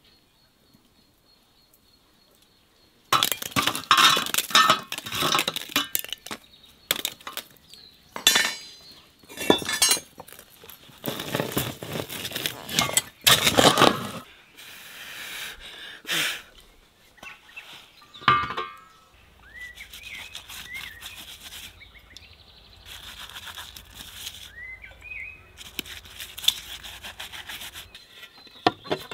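Metal cookware clanking and knocking: a heavy metal lid and a large pot handled and the lid lifted off. There is a burst of clatter about three seconds in that runs for some ten seconds, then a few scattered knocks.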